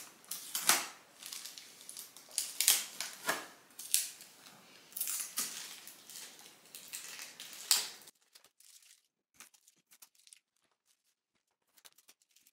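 Clear plastic film and shipping tape being peeled and crinkled off a new printer: a run of sharp crackles and rips. After about eight seconds only faint small clicks remain.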